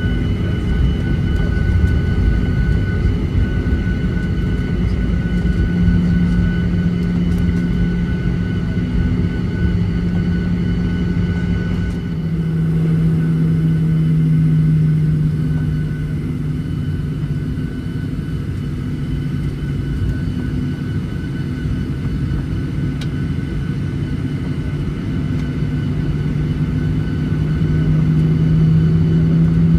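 Cabin noise of a Boeing 737-800 taxiing, its CFM56-7B engines at idle: a steady low rumble and drone with a thin high whine, the drone shifting in pitch about twelve seconds in and again near the end.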